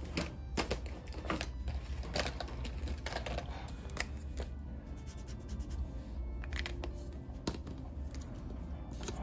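Irregular light clicks, taps and paper rustles from hands handling a paper planner, sticker sheets and marker pens on a desk, over a steady low hum.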